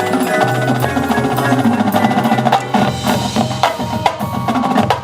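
High school marching band playing: quick wood block and mallet percussion strikes over sustained low wind notes, with a short break in the sound near the end.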